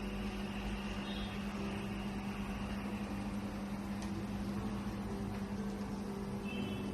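A steady low hum over a hiss, with faint music underneath.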